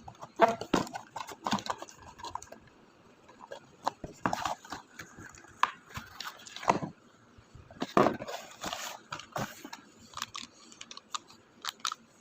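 Irregular clicks, taps and short rustles of objects being handled by hand, the loudest about half a second, four, six and three-quarters, and eight seconds in.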